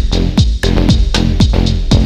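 Electronic dance music with a steady beat.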